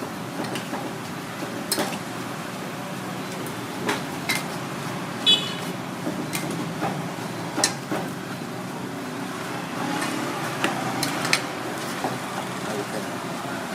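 Street traffic noise running steadily, with scattered sharp clicks and knocks and a brief ringing tone about five seconds in.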